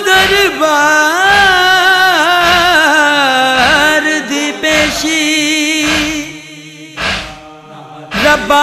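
Male noha reciter singing a lament in a sliding, ornamented line, then holding a long note; after a quieter pause the singing comes back near the end. A faint steady beat falls about once a second.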